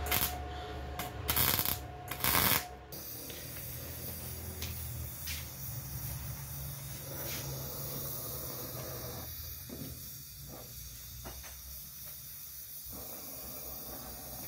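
Oxy-fuel gas torch hissing steadily as its flame works the steel of a car's damaged front end. Three loud short bursts of noise come in the first three seconds.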